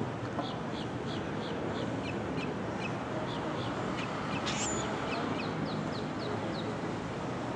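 A bird calling in two runs of short, falling notes, about three to four a second, with one sharp high chirp in between, over a steady background hiss.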